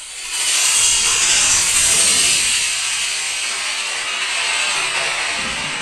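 Model rocket motor, a 24 mm E-class, igniting with a sharp crackle and lifting off: a loud, steady rushing hiss from the motor burn that slowly fades as the rocket climbs away.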